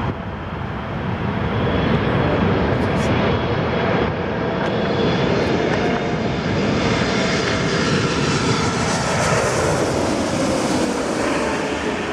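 Jet engines of a Boeing 747-8F freighter, four GEnx turbofans, rumbling loudly as the aircraft flies past on its landing approach. Over the second half the engine whine slides down in pitch as the jet goes by.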